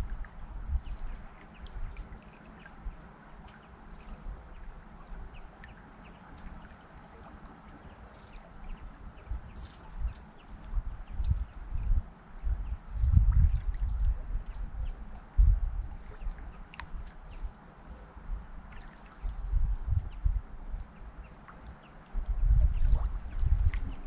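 Songbirds chirping, short high notes every second or two, over the faint steady wash of the Mura river, with bursts of low rumbling that come and go.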